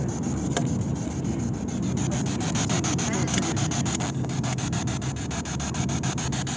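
Spirit box sweeping through radio stations: a fast, even chopping of static, about eight clicks a second. The camera rubbing against clothing adds a rough scraping underneath.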